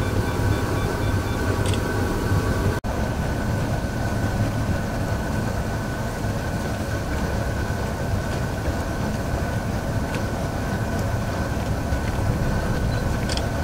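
Solar-powered boat under way: a steady low rumble with a faint, steady high whine over it, broken by a brief gap about three seconds in.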